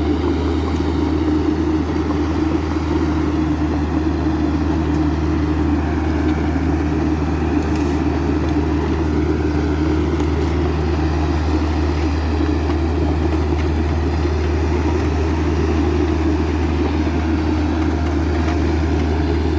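Hydraulic excavator's diesel engine running steadily at an even pitch, with a deep hum.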